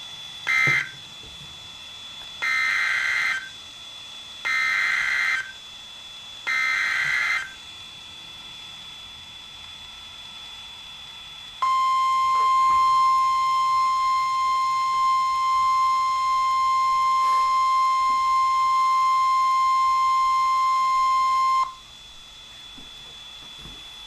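NOAA Weather Radio Emergency Alert System signals. First come two short end-of-message data bursts, then three one-second digital header bursts a second apart. About four seconds later the 1050 Hz warning alarm tone sounds steadily for ten seconds, announcing a new warning.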